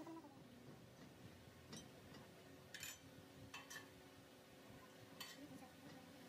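Near silence broken by about five faint, sharp clicks or clinks at uneven intervals, the loudest nearly halfway through.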